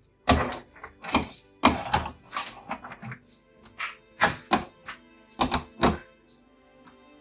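Metal rotisserie skewers and their wire cage clicking and knocking against the air fryer oven's rack slots as they are fitted in: a dozen or so sharp, irregular knocks and clicks.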